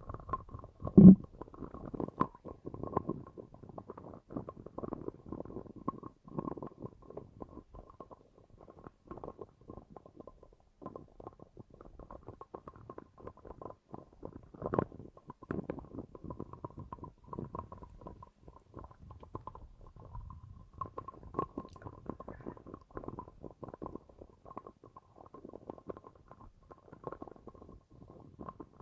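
Muffled, irregular low gurgling and rumbling, with a louder gurgle about a second in.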